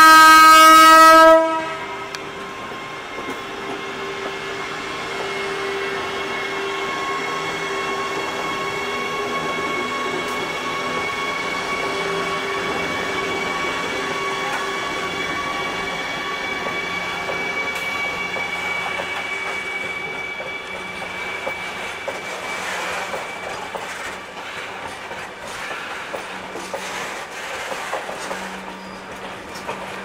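WAG-12B electric freight locomotive sounds its horn in one loud blast of about a second and a half, then its traction motors whine steadily, creeping up in pitch as it accelerates past with a loaded rake of covered wagons. In the last several seconds the wagons' wheels click and clatter over the rail joints.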